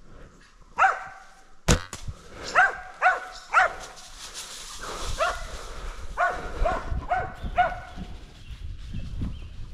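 Hunting dog barking repeatedly at a bailed wild boar, about nine barks in short runs: the bay that tells the hunter the pig is held. A single sharp crack sounds just under two seconds in.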